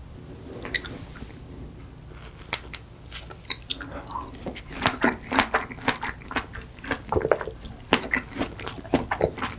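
Close-miked eating of strawberry tiramisu: a few faint sounds at first, then from about two and a half seconds in, wet chewing and biting of strawberries and cream in quick, irregular smacks and clicks.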